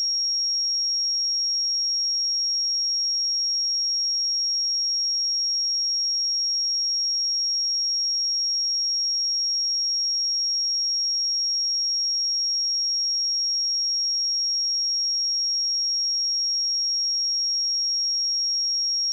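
A pure 5586 Hz sine test tone, one steady high-pitched beep held at constant level throughout.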